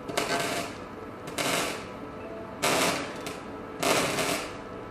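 A power tool running in short bursts of about half a second, evenly repeated roughly once every 1.2 seconds, during wheel rim repair work.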